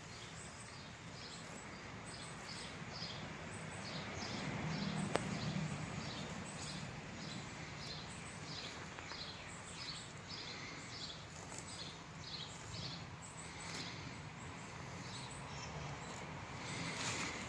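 Outdoor background noise with short, high chirps repeating in loose runs of a few a second, from a small bird or insect. One sharp click about five seconds in.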